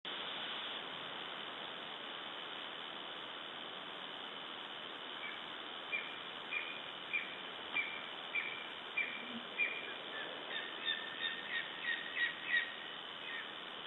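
Lesser spotted eagles calling: a series of short, high yelps about every half second, starting about five seconds in and coming quicker and overlapping near the end, over a steady hiss.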